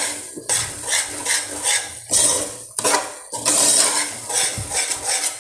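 A metal spoon stirring and scraping thick ground-lentil panjiri mix around the bottom of a metal pot, in repeated irregular strokes. Stirring keeps the roasting mix from sticking to the bottom.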